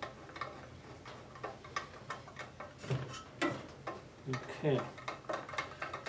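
A hand screwdriver tightening a bolt into the metal table of a small lapidary trim saw: irregular light metallic clicks and scrapes.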